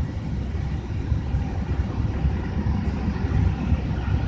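Steady low rumble of running machinery with a faint high whine, unchanging throughout: the background noise in a parked airliner's cockpit.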